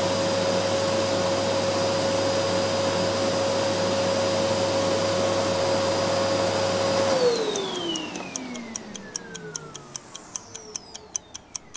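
Vacuum cleaner running with a steady motor whine, switched off about seven seconds in, its whine falling in pitch as the motor winds down. As it dies away, a countdown timer ticks quickly and evenly.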